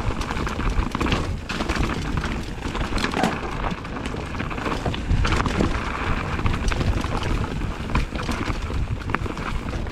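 Mountain bike rolling down a rocky trail: tyres crunching and knocking over rock, with the bike rattling, a steady rush and a constant scatter of short clicks and knocks.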